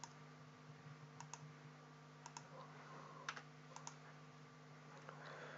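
Near silence: a low steady hum with a few faint computer clicks, mostly in quick pairs.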